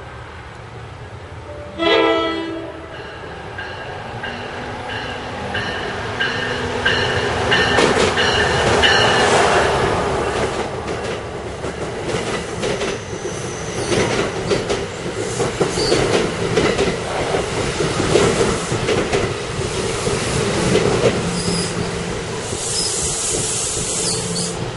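NJ Transit PL42AC diesel locomotive sounding a short horn blast about two seconds in, then passing close by at speed with its bilevel coaches, wheels clacking over the rail joints with some squealing.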